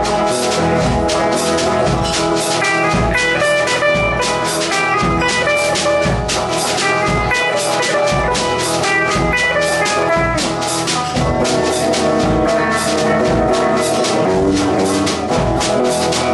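A band playing an instrumental break between sung verses of a country-rock song: drum kit keeping a steady beat of about two strokes a second under a lead melody line.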